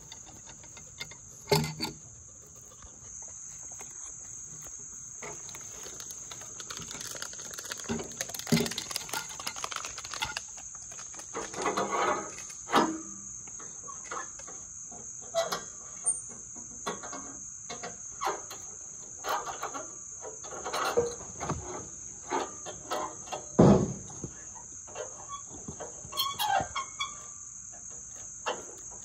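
Scattered knocks, clanks and scrapes as a pine log is worked into place on a portable sawmill's steel bed, with one heavy thump about three-quarters of the way through. Behind them runs a steady, high insect chorus.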